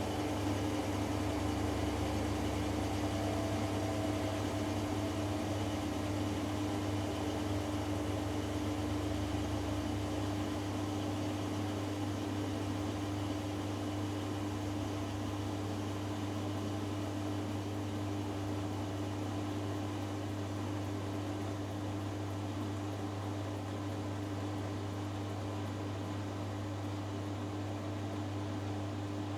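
Hoover Dynamic Next washing machine in its final spin, its motor and drum giving a steady hum. A lower rumble fades out about ten seconds in and the sound eases slightly.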